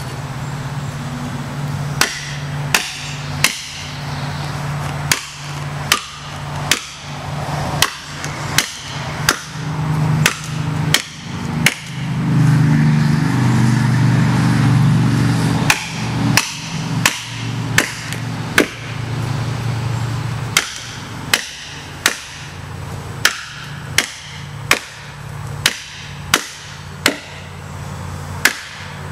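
Repeated hard hammering blows, about one to two a second, with a break of a few seconds in the middle, over a steady low drone that swells during the break.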